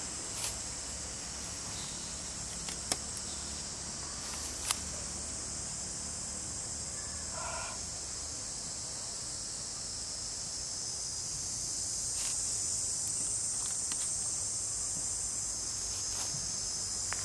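Steady high-pitched insect chorus, an unbroken shrill drone that grows slightly louder about twelve seconds in, with a few sharp clicks in the first five seconds.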